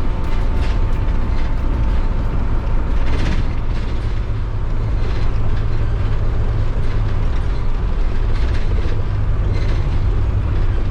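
Converted minibus motorhome driving on a dirt road: a steady low rumble of engine and road, with scattered short knocks and rattles from the rough surface.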